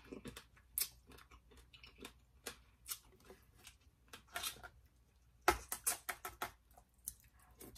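Close-up eating sounds of blue crab: shell pieces cracking and crunching and mouth chewing, as scattered short clicks with a quick run of louder crunches about five and a half seconds in.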